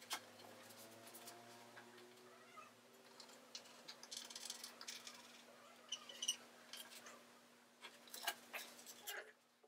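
Faint handling sounds: a pencil scratching a line on laminated board, with light ticks and knocks from the board and a roll of cord. Early on, a faint pitched cry slides upward over a steady low hum.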